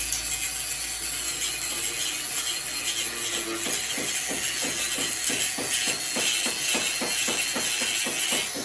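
MIG welding arc crackling and hissing steadily as wire is fed into the weld.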